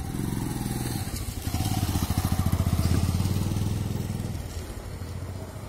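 An engine running close by with a low, fast pulsing note, growing louder to a peak in the middle and then easing off.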